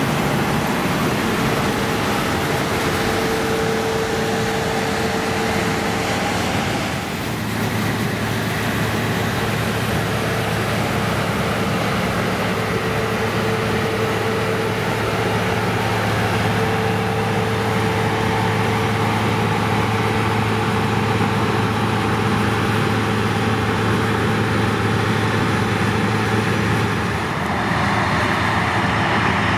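Claas Lexion 560 combine harvester running under load while threshing windrowed grass for seed: a steady engine drone with a steady higher whine over the rush of the threshing works. The sound dips and changes briefly about seven seconds in and again near the end.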